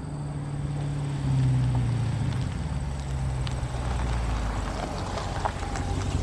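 Dodge Challenger R/T's V8 exhaust, with its active exhaust valves and resonators deleted, running as the car drives up and slows: loudest and dropping a little in pitch about a second or two in, then settling to a steadier low note as it rolls to a stop.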